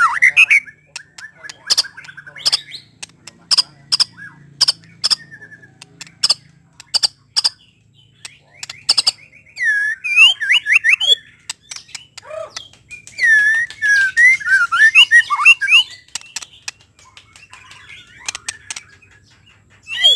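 White-rumped shama singing: a run of sharp ticking notes, then loud whistled phrases that swoop up and down in pitch about halfway through and again a few seconds later.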